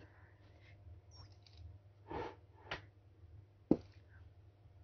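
A person's soft breath out about two seconds in, then two sharp clicks, the second and loudest near the end.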